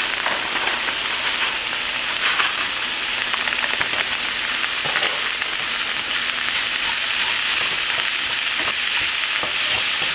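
Frozen cauliflower rice sizzling steadily in hot olive oil in a frying pan with sautéed vegetables, with a wooden spatula scraping and stirring it near the end.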